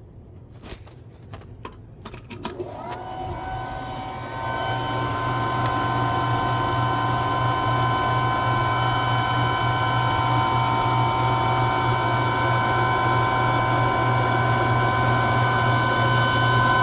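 A few light clicks, then an electric motor starts about two and a half seconds in, its whine rising quickly to a steady pitch, and runs steadily with a strong low hum.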